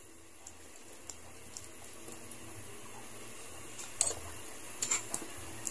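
Palabok sauce simmering quietly in a large metal pan, with a few faint clicks of a spoon against the pan as it is stirred about four and five seconds in.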